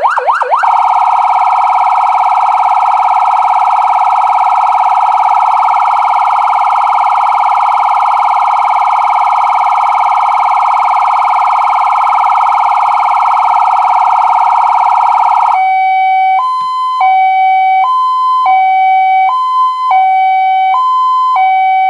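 CJB 620B electronic siren cycling through its tones: a fast yelp of rising sweeps, about five a second, switches under a second in to a very rapid warble held for about fifteen seconds. It then changes to a two-tone hi-lo, alternating between a lower and a higher note about every three-quarters of a second.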